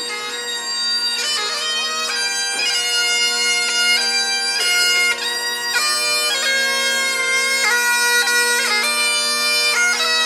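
Bagpipe playing a tune over its steady drones, the melody stepping from note to note with quick grace-note flourishes.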